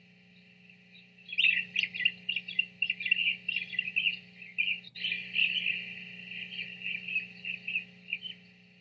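A small songbird singing a fast, continuous run of varied chirping notes, starting about a second in and stopping shortly before the end, over a faint steady hum.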